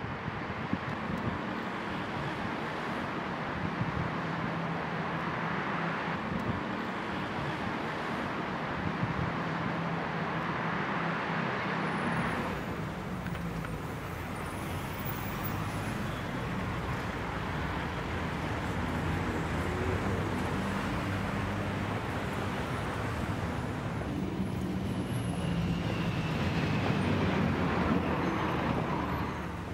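City street ambience: steady traffic noise from passing cars, shifting a little twice.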